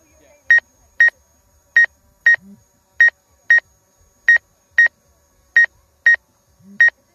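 An electronic beeper sounding a steady repeating double beep: two short, high beeps half a second apart, each pair coming again about every 1.25 seconds.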